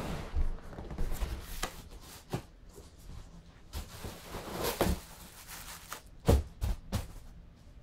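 Cardboard shipping box being handled and items pulled out of it: irregular rustling, scraping and knocks of cardboard, with one sharper knock late on.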